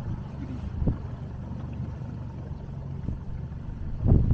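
Low, steady rumble of a motorboat under way at low speed, with wind thumping on the microphone about a second in and twice near the end.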